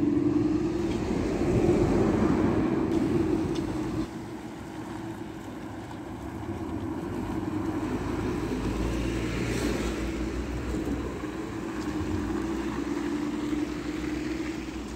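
Articulated city bus engine running with a steady drone as the bus drives past. The level drops suddenly about four seconds in, and the bus engine sound carries on more quietly.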